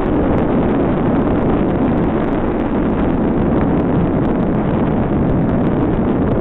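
Wind buffeting the camera's microphone on a fast bicycle descent: a loud, steady rushing rumble.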